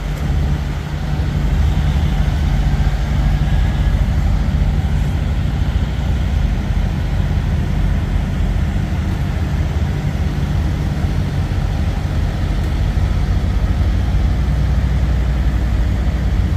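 Diesel engine idling steadily, a low, even drone.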